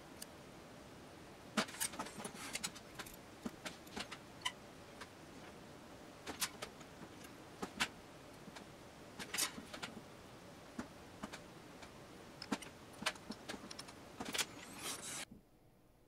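Watchmaker's tweezers clicking and tapping against the small parts and screws of a quartz watch movement in its case: irregular small clicks and ticks over a steady faint hiss, which cuts off about a second before the end.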